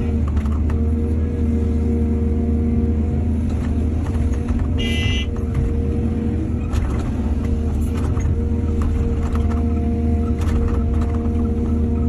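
Heavy diesel engine of an excavator running steadily, a deep low drone, with scattered short knocks and clanks. A brief high pitched tone sounds about five seconds in.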